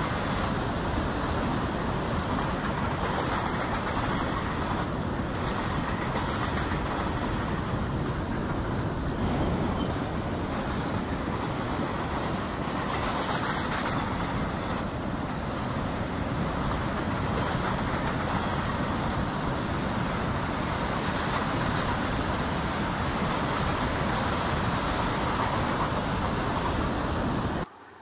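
Steady, even rolling noise of a log train's loaded wagons running along the track, with no distinct engine note. It cuts off suddenly near the end.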